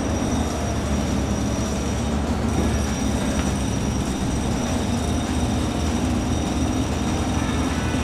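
Remote-controlled toy excavator working its arm and bucket in sand: a steady mechanical whirring of its small electric motors and gears.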